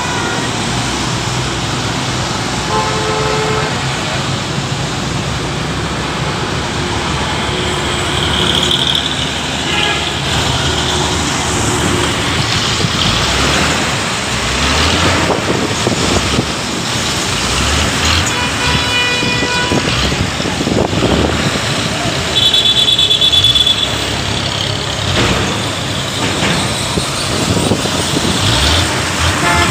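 Road traffic passing on a wet road: a steady wash of engine and tyre noise from buses, vans and cars. Vehicle horns sound several times, briefly a few seconds in and twice more in the second half, the last one higher-pitched.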